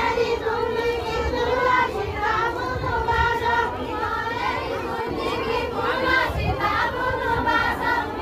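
A group of women singing together in unison, a steady, held, wavering melody with no breaks.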